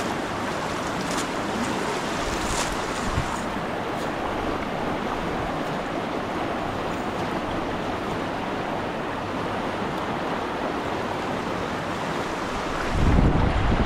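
Fast, rain-swollen stream rushing steadily over its bed, a constant hiss of flowing water. A low rumble comes in near the end.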